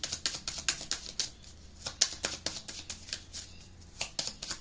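A deck of oracle cards being shuffled in the hands: quick runs of papery card flicks and snaps, in three spurts with short pauses between.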